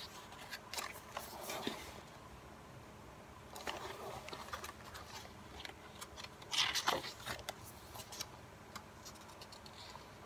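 Photobook pages being turned by hand: paper rustling and flapping in a few short bursts, the loudest about two-thirds of the way through.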